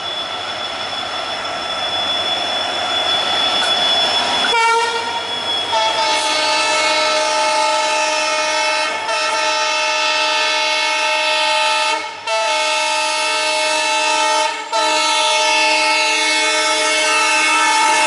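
Indian Railways Alco diesel locomotive sounding its multi-tone horn in long, nearly unbroken blasts, with short breaks about every three seconds, getting louder as it approaches. For the first four seconds or so, before the horn starts, there is the rolling wheel noise of a passing train.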